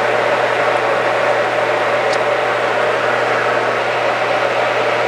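Steady hum and hiss of a powered-up CNC lathe standing with its spindle stopped, with a faint click about two seconds in.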